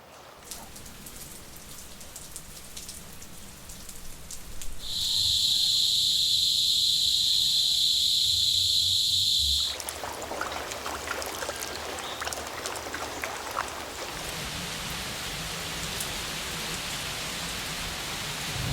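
A run of outdoor ambiences: a quiet bed with a few faint drips, then a loud, steady high-pitched whine that cuts in about five seconds in and stops abruptly some five seconds later, then rain falling as a dense patter of drops.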